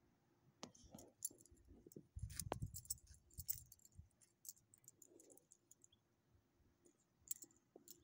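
Faint, scattered jingling clicks of a small dog's collar tags and metal leash clip as it moves on the leash, with a brief low rumble a little over two seconds in.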